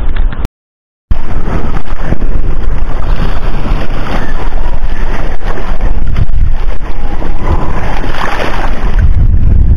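Loud, rough wind noise buffeting the microphone at sea, with water noise, and no clear tone from any engine. The sound drops out completely for about half a second shortly after the start, then comes back.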